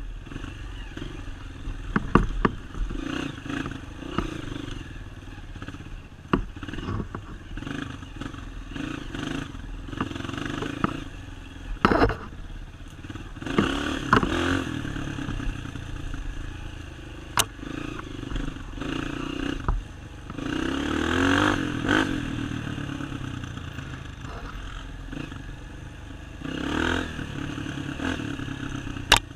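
Dirt bike engine on an off-road trail, revving up and down over and over as the throttle opens and closes, with scattered knocks and rattles.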